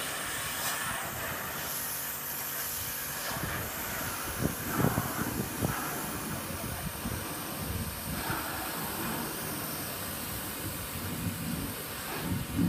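Pressure washer running steadily, its spray hissing against a car's bodywork, with a few louder surges about halfway through and near the end.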